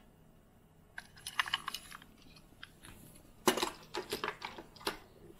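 Small die-cast metal toy cars clicking and clattering against each other and a wooden surface as they are handled and set down, in two bursts of sharp clicks, the second louder, starting about three and a half seconds in.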